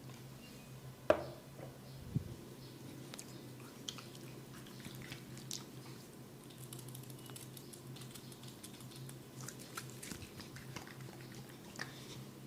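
Close-up sounds of hands massaging and scratching an oiled scalp and hair: many small wet, crackling clicks over a steady low hum, with a sharp crack about a second in and a smaller one a second after.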